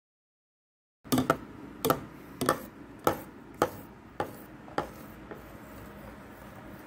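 A metal spoon knocking against the side of a stainless steel pot while stirring batter, a sharp clink about every half second that grows fainter over about four seconds. The sound starts about a second in.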